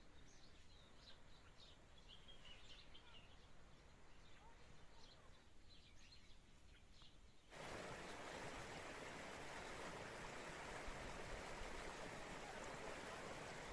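Faint birds chirping for the first half. About halfway through it cuts abruptly to the steady rush of flowing spring water.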